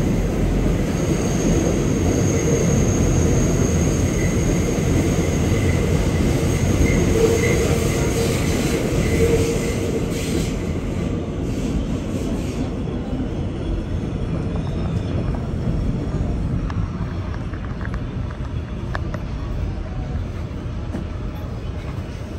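Kawasaki R211T subway car coming to a stop, heard from inside the car: loud running noise from the wheels and track with thin, steady high tones over it. About twelve seconds in, the noise drops to a quieter, duller hum as the train stands at the platform.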